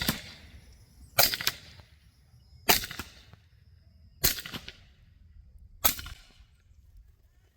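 Suppressed shots from a BinTac T9 9mm big-bore PCP air rifle fitted with a DonnyFL suppressor: four shots about a second and a half apart, each with a short echo, following the tail of one more at the very start. Suppressed, it sounds like a quiet little .22 rather than a 9mm.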